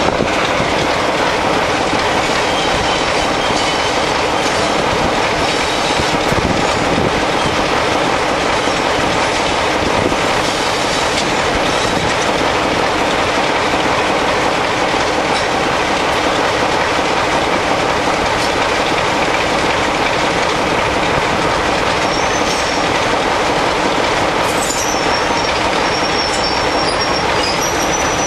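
Class 26 (Sulzer six-cylinder) and Class 37 (English Electric V12) diesel locomotives working hard together as a double-header, their engines thrashing under power as the train pulls away, heard close up from a window behind the locomotive. A faint high whistle comes in near the end.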